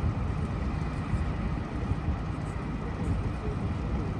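Steady outdoor street noise dominated by a low, uneven rumble, with no distinct event standing out.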